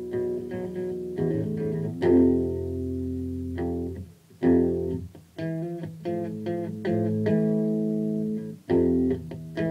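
Electric guitar played in a free improvisation: picked single notes and chords, with a few loud struck chords ringing out. The sound cuts off briefly twice near the middle.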